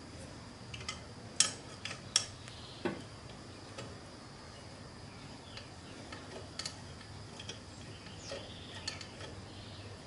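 Metal clicks and clinks of a wrench working the end-cover bolts of an electric motor while they are loosened. The sharpest clinks come in the first three seconds, with lighter scattered ticks after.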